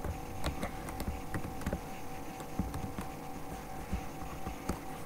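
Scattered, irregular clicks of a computer keyboard and mouse over a steady electrical hum.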